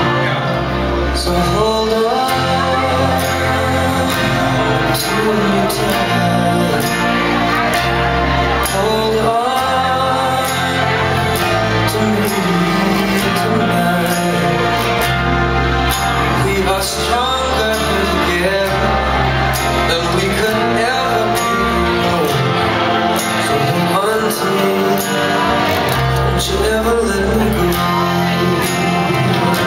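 Pop song playing loudly with a singer over held bass notes that change every second or two.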